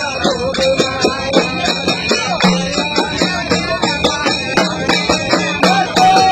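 Garba dance music with a fast, steady beat and a wavering melody line over it.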